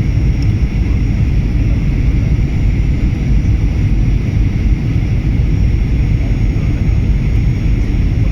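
Steady cabin noise inside a Boeing 737-800 on final approach: a low rumble of airflow and the CFM56-7B engines, even and unbroken, with a fainter hiss above it.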